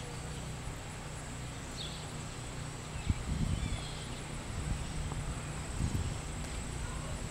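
Footsteps and camera-handling thumps from someone walking with a handheld camera, over a low rumble. A thin steady high tone runs underneath, and a few faint short chirps come near the start and about four seconds in.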